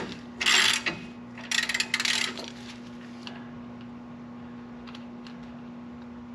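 Two short bursts of metal scraping and rasping as a freshly lubricated rear brake caliper slide pin is worked back and forth in its bore, now freed up after soaking. A steady low hum continues underneath, with a few faint ticks.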